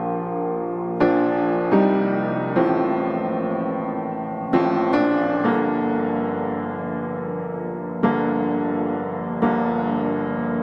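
Background piano music: slow sustained chords, with new chords struck every second or two.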